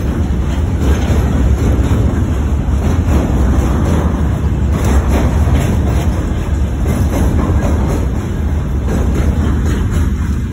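Freight train of open gondola wagons rolling past: a steady, loud rumble of steel wheels on the rails.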